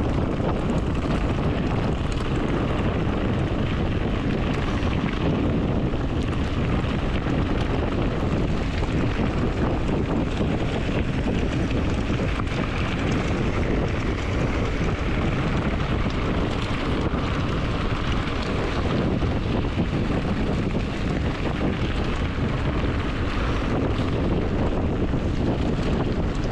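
Wind buffeting the microphone over a steady rumble of mountain-bike tyres rolling on a gravel road.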